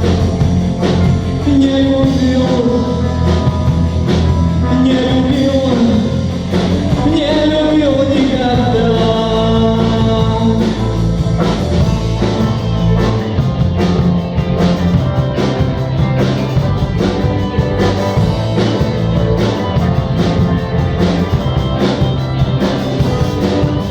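Rock song in an instrumental break: a bending melodic lead line over bass and a steady drum beat.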